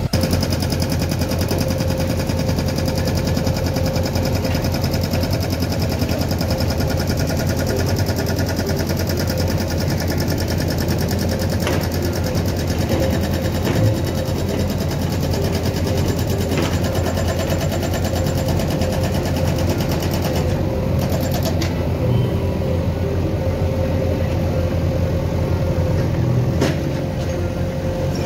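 JCB 3DX backhoe loader's diesel engine running steadily while the backhoe digs, with a few short knocks and one louder thump about halfway through.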